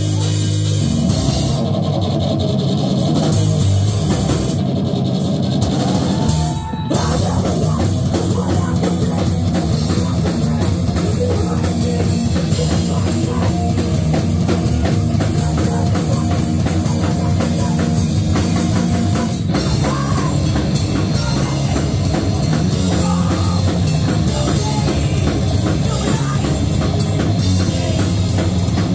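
A live rock band playing loud: electric guitar, electric bass and a drum kit, with a brief break about six and a half seconds in.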